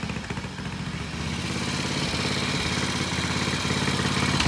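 Vintage Triumph motorcycle engine running at idle with an even, steady beat, growing a little louder toward the end.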